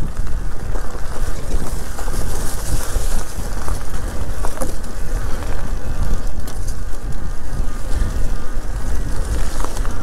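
Electric mountain bike ridden uphill on a forest trail: steady wind rushing over the camera microphone and the rumble of tyres over the ground, with a faint buzzing whine from the motor under power and a few light knocks.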